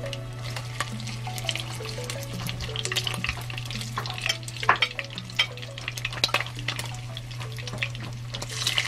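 Boiled pork belly pieces frying crisp in hot oil in a nonstick wok: irregular crackles and pops of spitting oil, with the sizzle turning louder and denser near the end.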